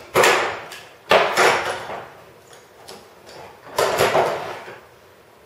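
Orange one-handed bar clamps being released and laid down on the table-saw top: three short clattering handling noises, one at the start, one about a second in and one near four seconds.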